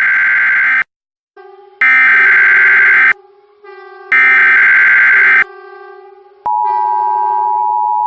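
Emergency Alert System SAME header: three bursts of screeching digital data tones, each a little over a second long. About six and a half seconds in, the steady two-tone EAS attention signal starts and holds. A fainter steady low drone sounds underneath between the bursts.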